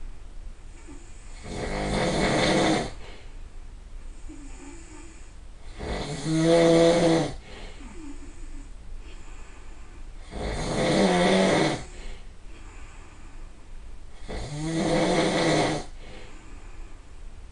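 A person snoring loudly, four long snores about four seconds apart, each lasting about a second and a half, with faint breathing between them.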